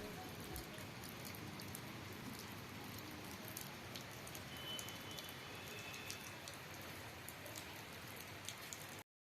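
Steady rain falling, faint, with scattered drops ticking; the sound cuts off abruptly about nine seconds in.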